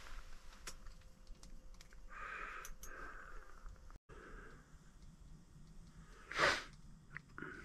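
A man with a head cold breathing audibly through a congested nose in soft, repeated sniffles, with one loud sharp sniff about six and a half seconds in. A few small clicks come from handling the fishing rod and reel.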